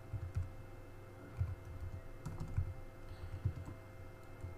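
Typing on a computer keyboard: a handful of separate, irregularly spaced keystrokes.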